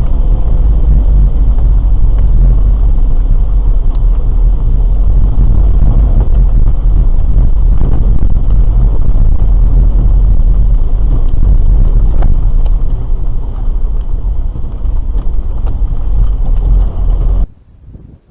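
Car being driven, heard from inside the cabin on a dashcam: a loud, steady rumble of engine and road noise with a few faint knocks. It cuts off suddenly near the end, leaving only faint noise.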